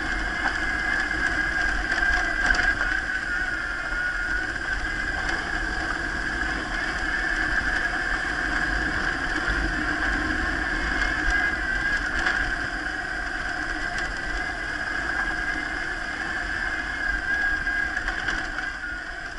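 BMW R1150RT's flat-twin engine running steadily as the motorcycle rides a rough gravel track, heard through the onboard camera with a low rumble from the road surface.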